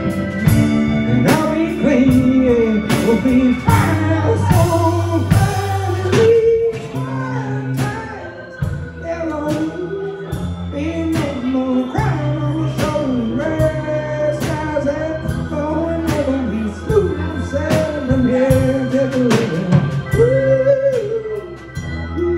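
A small band playing live: electric guitar, drum kit and keyboard, with drum hits over steady low notes and a lead line that bends and slides in pitch.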